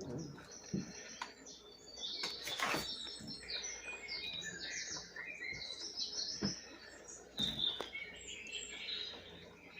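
Small birds chirping in quick, repeated calls, with a few sharp knocks in between.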